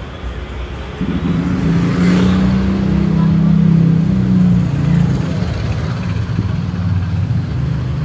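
A motor vehicle engine running with a steady low hum that sets in abruptly about a second in and is loudest in the middle, over low street rumble.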